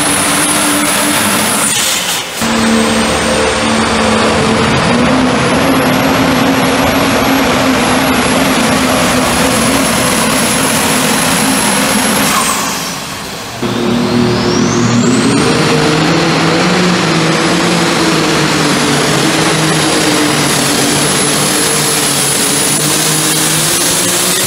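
Super stock diesel pickup trucks at full throttle dragging a pulling sled: a heavy engine drone under a high turbocharger whistle. The whistle climbs as each run gets going, holds steady, and falls away as the truck comes off the throttle. Twice the sound breaks off abruptly and a new run starts.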